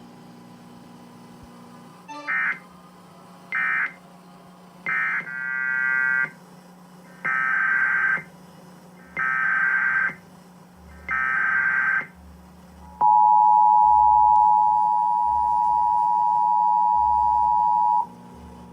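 Emergency Alert System data bursts: three short warbling bursts, then three longer ones about a second each, the SAME header that starts a tornado warning. They are followed by the EAS two-tone attention signal, held steady for about five seconds.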